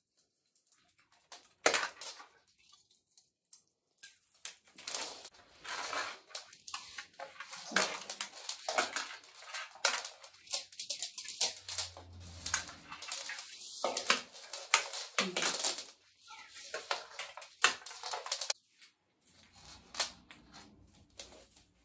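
A tangled string of Christmas fairy lights being shaken and pulled apart: the small plastic bulbs and wire rattle and click against each other in quick, irregular bursts, which die away a few seconds before the end.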